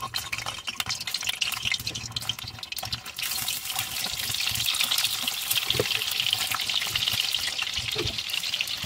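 Hard-boiled egg halves frying in hot oil in a kadhai: a steady crackling sizzle that grows louder about three seconds in, as more halves go into the oil.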